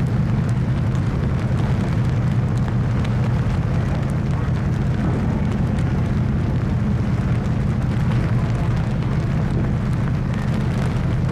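Steady low drone of a car ferry's engines under way, heard on deck with rushing wind on the microphone.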